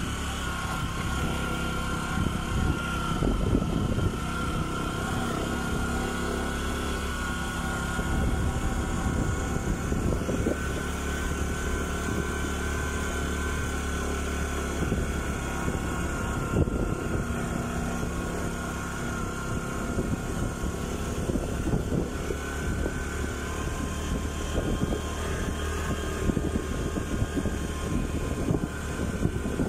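Motorcycle engine running steadily while riding along a road, at an even level throughout.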